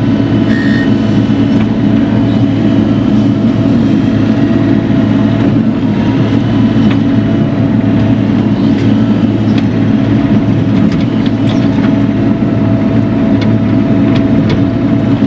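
Bobcat E42 mini excavator's diesel engine running steadily while digging, with a few faint clicks in the second half.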